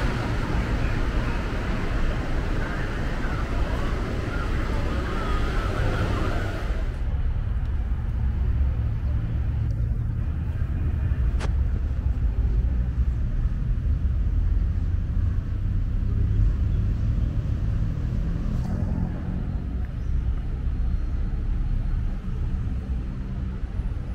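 Road traffic noise: a steady hiss and rumble of passing vehicles, which about seven seconds in gives way to a duller, lower drone of more distant traffic.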